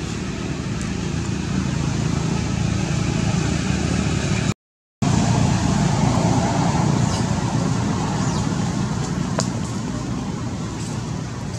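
Steady low rumble of road traffic, swelling a little after the middle and easing off toward the end, with a brief dropout to silence shortly before halfway.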